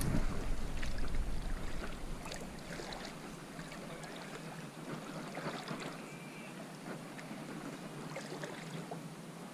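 Feet wading and splashing through shallow lake water: irregular sloshing steps as someone moves quickly through the shallows. A low rumble on the microphone in the first couple of seconds is the loudest part.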